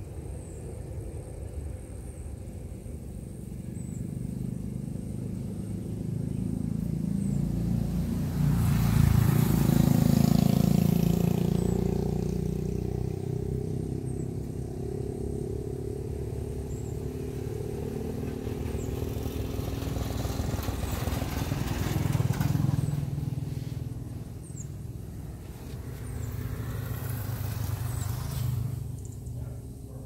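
Motor vehicles passing on the road, engine noise swelling and fading away. The loudest pass comes about a third of the way in, a shorter one about two-thirds in, and another near the end.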